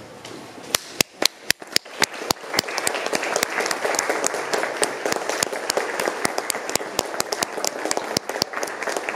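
Audience applause: a few single claps about a second in, swelling within two seconds into steady applause from a crowd.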